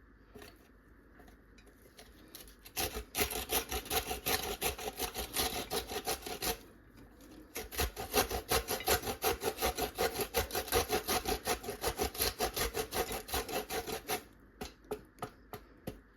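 Quick, regular rasping strokes of hand food preparation in the kitchen, about five a second, in two long runs with a short break between them and a few last strokes near the end.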